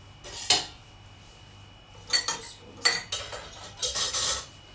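Metal cutlery and dishes clinking and clattering in four short bursts, as a serving spoon is fetched and handled.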